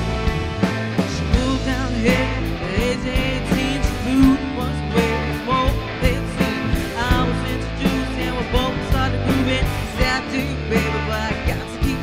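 Live rock band playing an instrumental passage: a wavering, bending lead line over steady bass, regular drum hits and keyboard.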